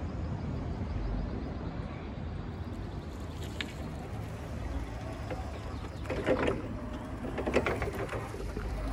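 Still RX 60-30 battery-electric forklift driving and turning on a concrete yard. There is a low steady rumble, with two brief louder rasping bursts about six and seven and a half seconds in.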